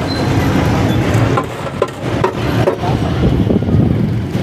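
Steady low rumble of street traffic, with a few light clicks.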